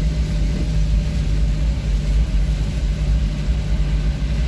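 Vehicle engine and road rumble while driving: a steady low drone with a constant hum.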